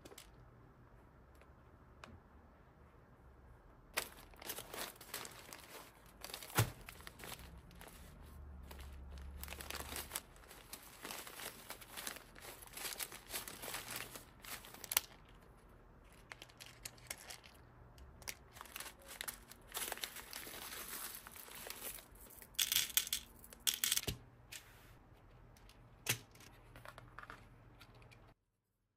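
Plastic bead storage being handled: small zip-lock plastic bags of beads crinkling, with sharp clicks and knocks from clear plastic compartment boxes, in irregular bursts. The sound cuts off abruptly just before the end.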